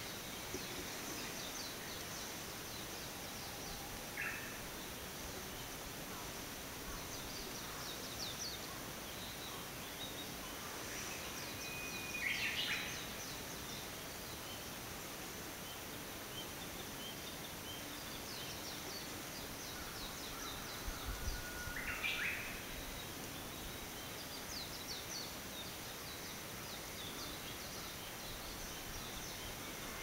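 Forest ambience under a steady, even hiss, with songbirds singing. Twice, about ten seconds apart, a bird holds a clear whistle and then breaks into a quick run of higher notes. A shorter call comes about four seconds in, and faint high chirps from other small birds are scattered throughout.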